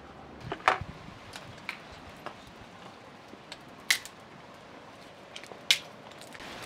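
Scattered sharp clicks and pops over a faint steady hiss, from a wire grill basket of fish being laid onto a charcoal grill over a burning fire. The metal basket clinks on the grill and the embers crackle, with the two loudest snaps about four and six seconds in.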